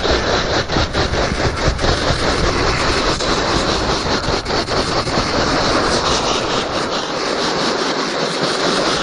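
Skis scraping and chattering over firm, groomed snow at speed, with wind rushing over the camera's microphone. Rough clattering in the first half gives way to a smoother, steadier rush.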